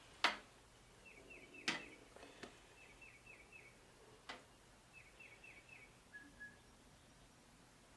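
A few faint clicks and knocks, likely from the chainsaw chain being handled, the first the loudest. Between them a small bird chirps faintly in short runs of three or four quick notes, about three times.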